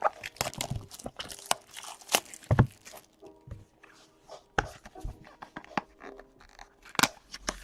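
Trading-card packaging being opened and cards handled: an irregular run of crinkles, taps and clicks with short rustles and scrapes.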